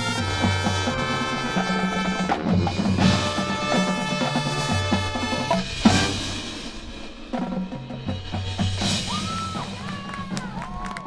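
Marching band playing a field show: sustained wind chords over drums and percussion, with a sharp accent about six seconds in. After that the music drops quieter, and sliding tones come in near the end.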